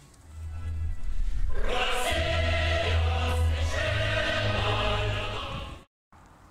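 Choral music with a heavy bass line, which starts a moment in and cuts off abruptly about a second before the end, followed by a brief dead silence.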